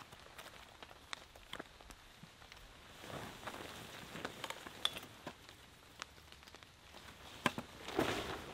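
A large tarp rustling as it is handled and folded, with scattered sharp ticks and a louder rustle near the end.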